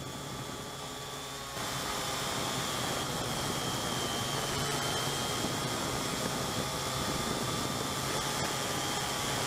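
Syma X8C quadcopter's brushed motors and propellers whining steadily in flight, picked up by the on-board camera's microphone over a rushing hiss. The whine wavers slightly in pitch and gets abruptly louder about a second and a half in.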